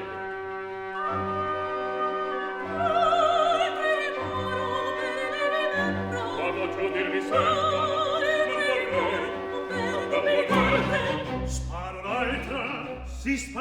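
Opera music: an orchestra with strings and a singer's voice holding notes with vibrato.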